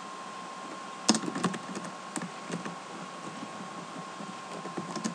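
Computer keyboard keystrokes: a few separate clicks, loudest about a second in, with a couple more near the end, over a faint steady electrical hum.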